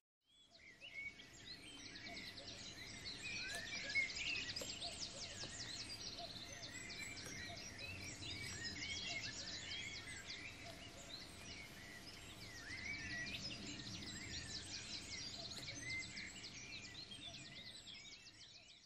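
A chorus of small birds singing and calling at once: many overlapping chirps, short whistled sweeps and rapid trills over faint low background noise. It fades in over the first couple of seconds and tails off near the end.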